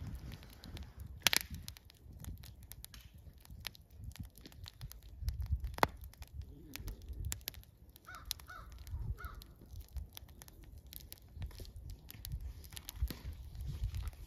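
Wood fire crackling and popping in a steel fire pit, with sharp irregular snaps and a low rumble underneath. About eight seconds in, a bird calls three times.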